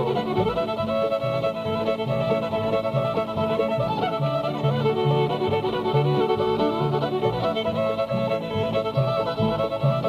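Old-time fiddle tune in the key of D played on fiddle, with the melody moving quickly over a steady rhythmic accompaniment of lower strummed or picked notes.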